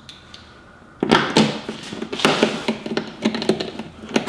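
Handling noise from a screwdriver and small car trim parts. A sudden knock comes about a second in, followed by a run of light clicks, taps and rustling.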